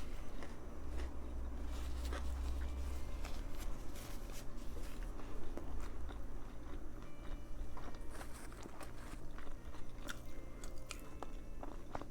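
Close-miked eating: bites into a sub sandwich and chewing, with many small irregular crunches and wet mouth clicks.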